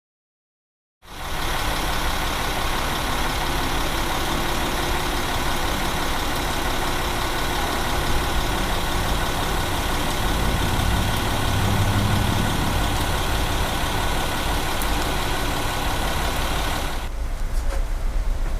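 Street traffic in the rain: a motor vehicle's engine running under a steady hiss of rain and wet road, with a low engine rumble swelling about halfway through. The sound starts abruptly after a second of silence and changes abruptly near the end.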